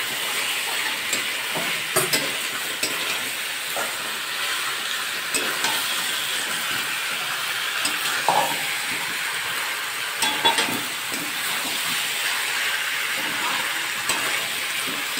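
Chicken and potato pieces sizzling in hot oil in a metal kadai, stirred with a metal spatula that now and then scrapes and knocks against the pan.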